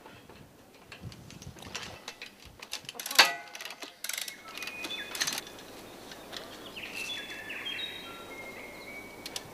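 Steel wire-rope cables and their clip hardware clinking and knocking as they are handled, with one sharp metallic clink about three seconds in. Over the last few seconds comes a string of short, high ringing tones at shifting pitches.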